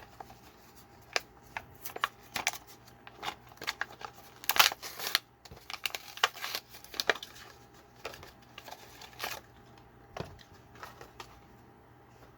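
Diecast toy car packaging being opened by hand: an irregular run of sharp crinkles, snaps and tearing of plastic and cardboard, busiest about four to five seconds in.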